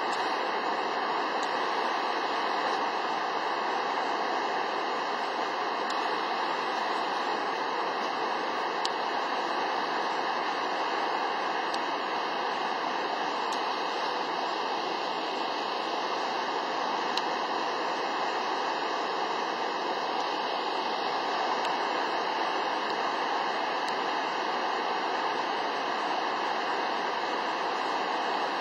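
Shōmyō Falls, a very tall waterfall, falling steadily: an even, unbroken rush of water.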